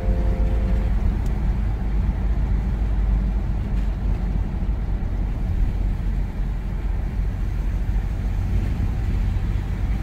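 Car driving on a road, heard from inside the cabin: a steady low rumble of tyre and engine noise.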